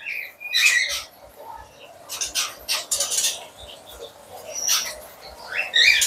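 Oriental magpie-robins chirping in short high calls, once just after the start and again near the end, over rustling and a few sharp clicks of the cage and its cover being handled.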